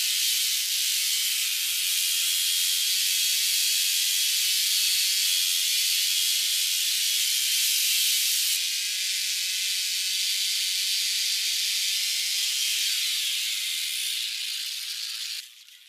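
Stihl chainsaw cutting into ice: a steady loud hiss of the chain chewing through the ice, with the engine's note wavering faintly underneath. It stops abruptly near the end.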